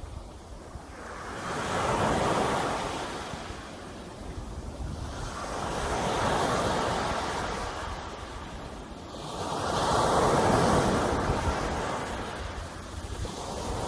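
Sea waves breaking and washing up the shore: three slow surges of surf about four seconds apart, each swelling and then falling away, with a fourth building near the end.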